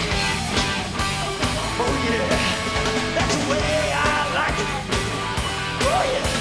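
Punk rock band playing live: electric guitars, bass guitar and drums, with yelled vocals coming in about two seconds in.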